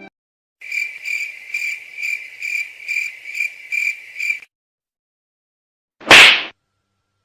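A high-pitched chirping tone, like a cricket, pulsing about twice a second for around four seconds, then stopping. About six seconds in comes one loud, short whoosh.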